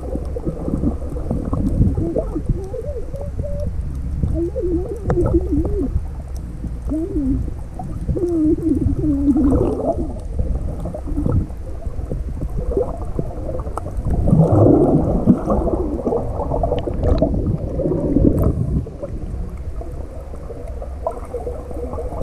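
Muffled underwater sound of water moving and gurgling around the camera, with a low rumble throughout and wavering tones that come and go, strongest about two-thirds of the way through.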